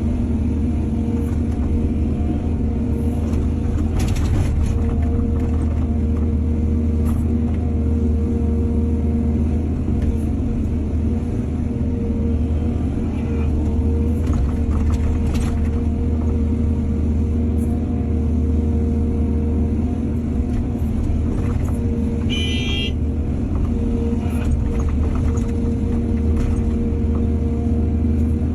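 Excavator engine running steadily at a constant pitch, with a few scattered knocks and a brief high-pitched squeal about two-thirds of the way through.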